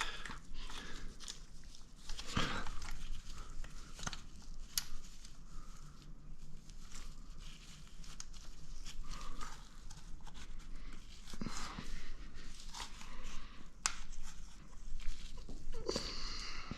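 Scattered light metallic clicks and rattles of a timing chain being worked by hand onto the cam sprocket of a Honda TRX400EX engine during a rebuild, with the rustle of handling.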